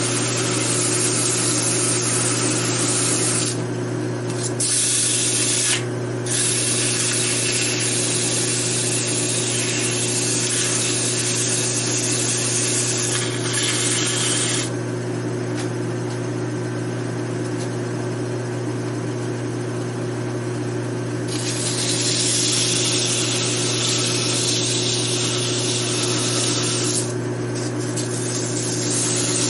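Lathe motor running with a steady hum while sandpaper is pressed against a spinning metal V-belt pulley, giving a hissing sanding sound. The sanding stops and restarts several times, with one long break in the middle.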